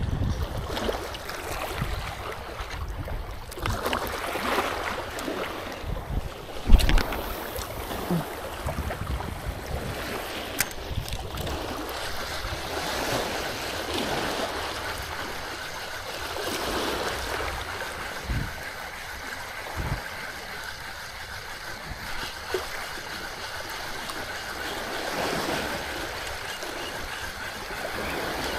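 Small sea waves washing in and out over shoreline rocks, a steady rushing wash that swells and fades every few seconds. A few short low knocks break through, the sharpest about seven seconds in.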